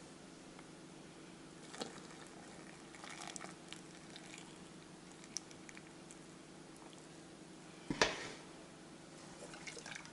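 Hot water poured in a thin stream from a steel pot into a glass jar of eggplant, faint, over a steady low hum. A single sharp knock comes about eight seconds in.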